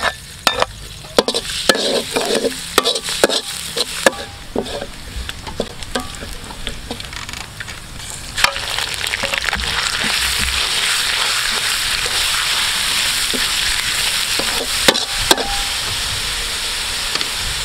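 Minced garlic sizzling in hot oil in a metal wok, with the spatula scraping and knocking against the pan. About eight seconds in, the sizzle jumps to a loud, steady frying as ground meat goes in. Two sharp knocks come near the end.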